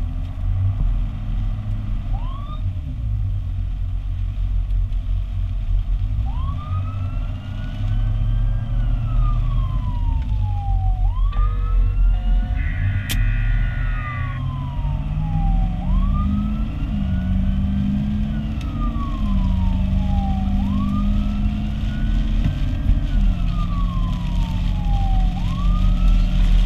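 Fire apparatus siren on a slow wail, rising and falling about every five seconds, over the heavy low drone of the truck's engine and road noise, heard from inside the cab. A brief steady tone cuts in about thirteen seconds in.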